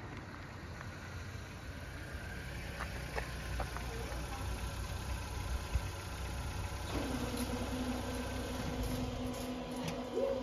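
Level-crossing barrier drives starting up about seven seconds in with a steady electric hum as the barrier booms begin to lower, over a low rumble.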